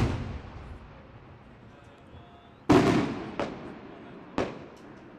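Coloured multi-break aerial firework shells from the 12th May Fireworks Factory bursting overhead: a bang right at the start, the loudest about two and a half seconds in, then two smaller bangs, each trailing off.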